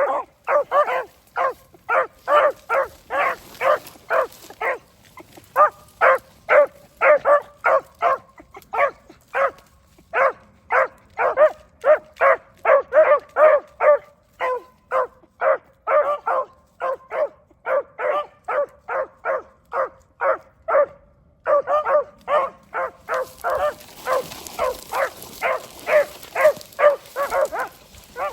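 13-inch beagle hounds baying on the trail, a long run of short, same-pitched barks about two to three a second, broken by a few brief pauses, as hounds give tongue while running a scent line in a field trial.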